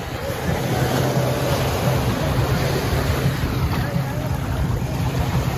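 Small waves washing onto a sandy beach, with wind on the microphone. Under it runs a steady low hum, and faint voices come and go.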